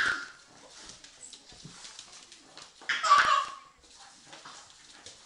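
A pug tugging at a crawling baby's trouser leg, making two short vocal outbursts: a brief one at the start and a longer one about three seconds in.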